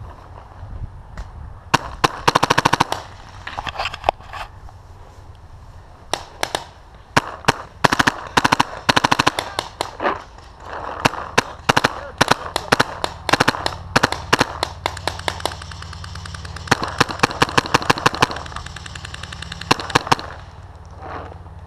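Paintball markers firing rapid strings of sharp shots, several separate volleys with short pauses between, the loudest ones close by.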